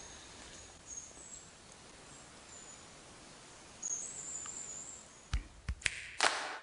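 Faint woodland ambience with high, thin bird chirps, one longer whistle about four seconds in. Near the end, sharp hand claps and thumps start as a song begins.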